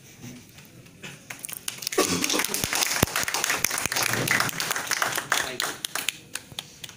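A small audience clapping, rising about a second in, with a dense run of claps that dies away near the end.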